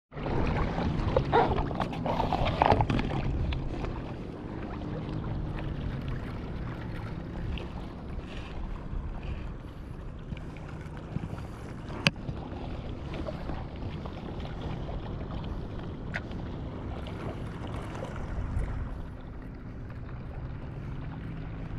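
Water sloshing around a stand-up paddleboard and wind on the microphone, over a steady low hum. There is a sharp click about twelve seconds in.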